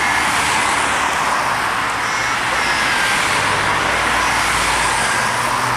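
Steady road-traffic noise, with a motor vehicle's low engine hum growing louder in the second half as it approaches. A few short faint high chirps are also heard.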